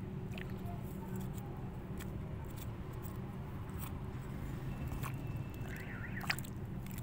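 A steady low mechanical hum, like a motor or engine running, with faint scattered clicks. About six seconds in there is a short high warbling chirp, ending in a sharp click.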